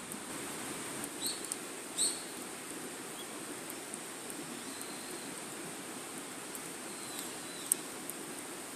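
Wood fire burning with a steady low rustle and scattered crackles and pops, one sharp pop near the end. A bird gives two short chirps early on and fainter calls later.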